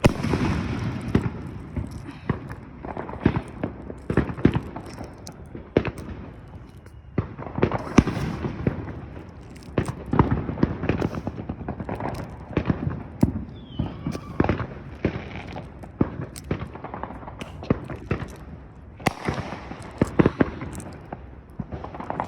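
Many fireworks going off at once: a steady rumble of distant blasts with frequent sharp bangs and crackling pops scattered throughout.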